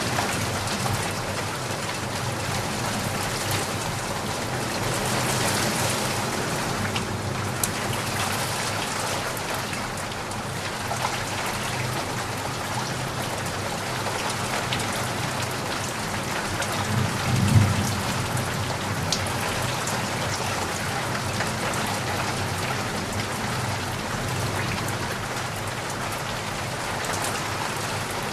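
Steady rain falling and pattering on surfaces, with a brief low thump about two-thirds of the way through.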